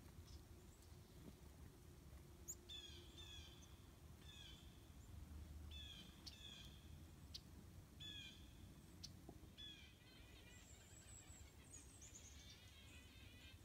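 Faint calls of a small bird: a run of short, repeated notes, each a quick downward-sliding note, about seven over several seconds. Near the end comes a single higher, thin call and then a brief chattering trill, over a low steady background hum.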